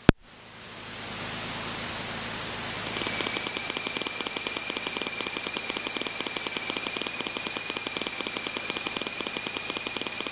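Static hiss on the aircraft's radio and intercom audio between transmissions. From about three seconds in it carries a fast, even pulsing and a steady high whine.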